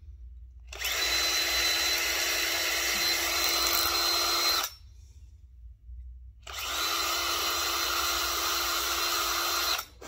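A small handheld power drill runs at a steady speed in two bursts of about four and three seconds, cutting a channel into the metal base of a die-cast toy car where the axle tube will sit.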